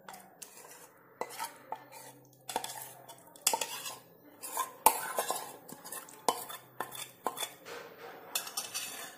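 A metal spoon scraping and clinking against a stainless steel bowl as thick set curd is scooped out into a cloth-lined steel colander. Irregular knocks of metal on metal, the loudest about halfway through.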